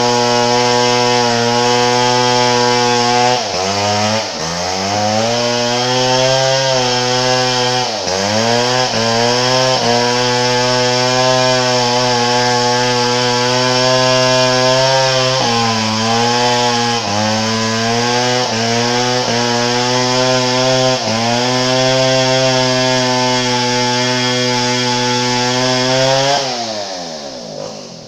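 Chainsaw at full throttle cutting through timber. Its pitch dips and recovers several times as the chain loads up in the cut, then falls away as the throttle is released near the end.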